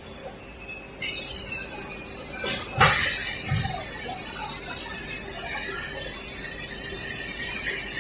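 Automatic track roller welding machine running: a short falling high whistle about a second in, a sharp click near three seconds in, then a steady high hiss.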